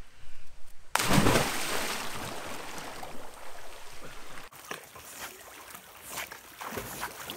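A person jumping into a deep swimming hole: one big splash about a second in, then water churning and settling over a couple of seconds. Smaller splashes and lapping water follow near the end as a swimmer and a dog paddle.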